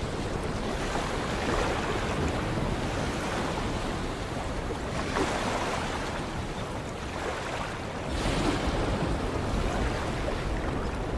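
Sea waves breaking and washing in as a steady surf, swelling with a new wave every three to four seconds.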